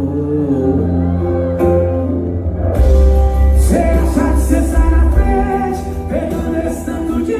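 A Brazilian song with male singing played loud through a Volkswagen Saveiro's car audio system, with heavy bass. About three seconds in the full beat comes in, with much deeper, stronger bass and hissing cymbals.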